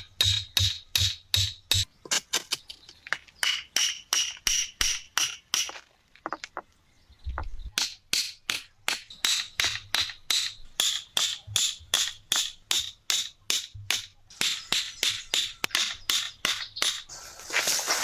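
Rapid, regular striking, about three blows a second, each with a short high ringing tone, pausing briefly about six seconds in.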